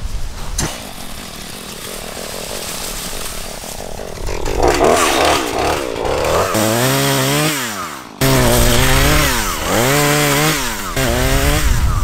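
Chainsaw revving as it cuts into a small cedar, its pitch rising and falling again and again as it slows in the cut and speeds back up; it drops out abruptly once and comes straight back.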